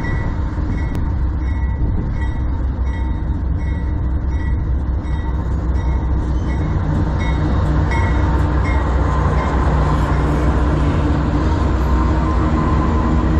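Two CN diesel-electric freight locomotives running past close by, a heavy low engine drone growing slightly louder as they go by. A bell rings about twice a second over the first eight seconds or so.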